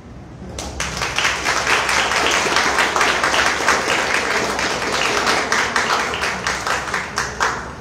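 Small audience applauding, a dense patter of handclaps that starts about half a second in and dies away near the end.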